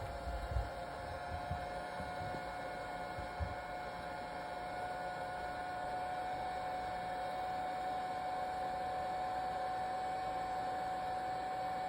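Heat gun blowing steadily, its fan giving a steady whine over rushing air, heating a phone part to soften the adhesive before prying it off. A few faint knocks in the first few seconds.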